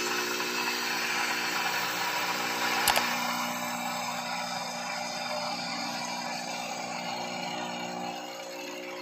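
B Coffee Co. Freshman capsule espresso machine's pump buzzing steadily through its first rinse cycle, with hot water running into a glass mug. A single sharp click comes about three seconds in. The machine gradually quietens near the end.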